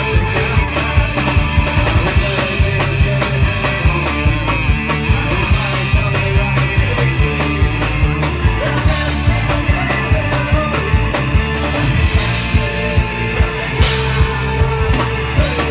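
Folk-punk band playing live, with fiddle, guitars and drum kit over a steady, driving drum beat.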